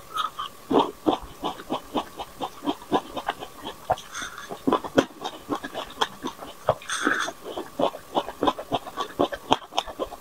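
Close-miked eating sounds: grapes being bitten off a skewer and chewed, a dense run of short, irregular, wet clicks and snaps.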